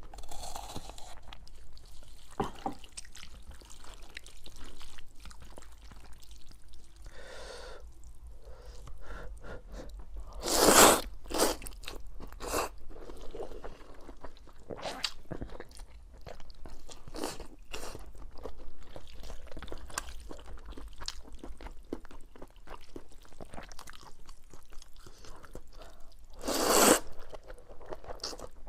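A person eating noodles close to the microphone: chewing and crunching with many small clicking mouth sounds, and two louder bursts about ten seconds in and near the end.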